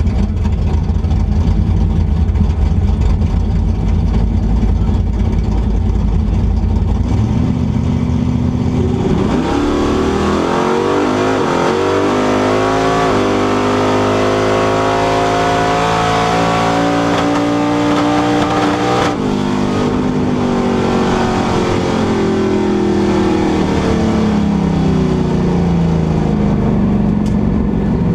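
Plymouth Barracuda drag car's nitrous-fed 440-based 500 cubic-inch stroker V8: a heavy rumble, then a full-throttle run with the engine pitch climbing for about ten seconds. About two-thirds of the way in it lets off and the pitch falls as it slows. The owner reports a heavy misfire above 7,000 rpm on this run and blames too much nitrous.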